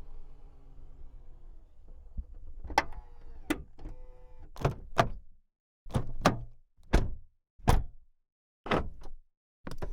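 Jeep Grand Cherokee body mechanisms: a low steady hum fades out, then about ten separate sharp clicks and clunks of latches and fittings, with a brief whir partway through.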